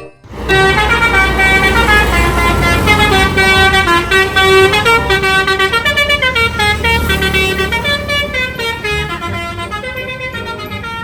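Multi-tone "telolet" air horn on a bus or truck playing a stepping melody, several notes sounding together, over a low engine rumble. It starts about half a second in and fades slowly over the last few seconds.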